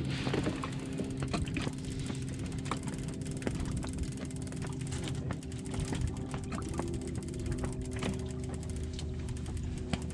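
Steady hum of a boat engine running, with irregular sharp clicks of fishing reels being wound in as a hooked fish is brought up.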